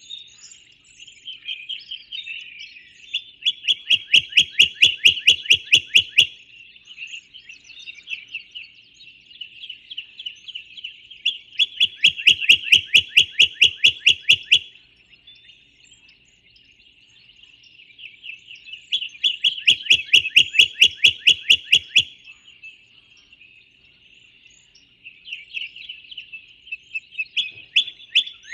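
Songbirds chirping steadily, while one bird sings a loud, rapid trill of about ten notes a second, lasting two to three seconds and repeated three times about every seven or eight seconds, with a fourth trill starting near the end.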